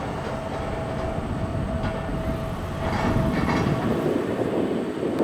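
Mitsubishi CRJ-900 jet's turbofan engines running during its departure: a steady rumble with a thin, steady whine through most of it.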